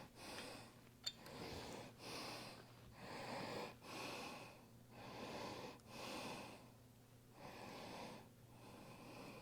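A man breathing hard and steadily close to the microphone, quick in-and-out breaths while straining at work, with a single sharp click about a second in.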